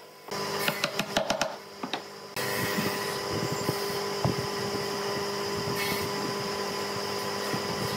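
Wooden mallet knocking wooden legs into the pine top of a cabinet, a quick series of sharp knocks. After about two seconds a steady mechanical hum sets in, with a dull thump or two as the wooden cabinet is handled.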